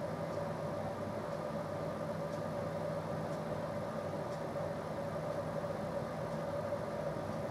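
Steady machine hum with a constant low tone and a fainter higher tone above it, with a couple of very faint ticks.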